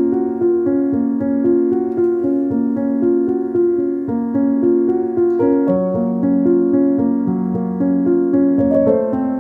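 Background music: a piano playing a steady, gentle run of notes.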